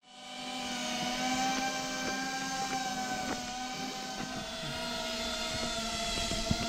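Cinewhoop FPV quadcopter's electric motors and ducted propellers whining steadily as it hovers, the pitch wavering slightly with small throttle changes. The sound fades in at the start, and there is a short click near the end.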